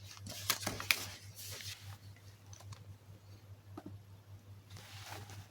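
Scattered clicks of laptop keys and buttons over a faint steady low hum.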